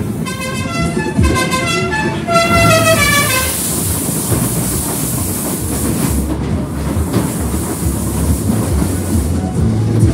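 Fairground ghost-train ride setting off: a short horn-like tune of stepped notes plays, then from about three and a half seconds in the car runs into the tunnel. It rumbles and clatters, under a loud rushing hiss that lasts a few seconds.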